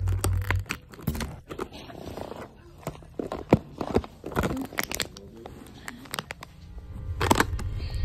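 A dog chewing a plastic water bottle: irregular sharp crackles and crunches of the thin plastic as it is bitten and squeezed.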